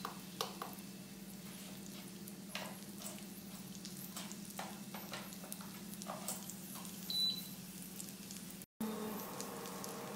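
Kebabs frying faintly in a pan over a steady low hum, with scattered light clinks of utensils. A short high beep comes about seven seconds in, and the sound drops out for a moment shortly after.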